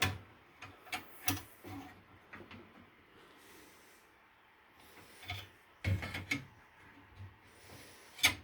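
Metal timing chain and gear set being handled, giving scattered clicks, clinks and knocks with quiet gaps between them. The sharpest knocks come right at the start and near the end.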